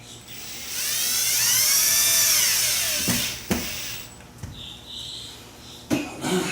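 Power drill driving a screw back into the air handler's panel: the motor whine rises and falls once over about two and a half seconds, followed by a few sharp clicks.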